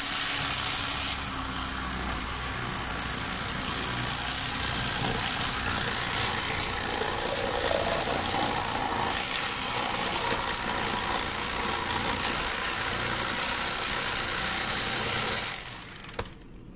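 Rapala cordless electric fillet knife running steadily, its reciprocating blades sawing through a crappie to take off a fillet; the motor switches off about a second before the end.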